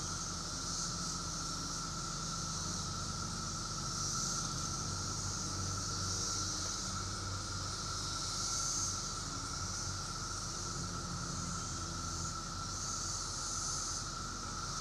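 Chorus of periodical (17-year) cicadas: a steady, even drone, with a higher hissy layer that swells and fades every few seconds.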